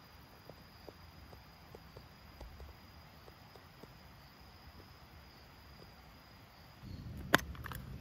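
An insect trilling steadily on one high pitch, with faint scattered ticks. About seven seconds in, handling noise starts and a sharp metal click sounds as a small metal tin is opened, followed by a few lighter clicks.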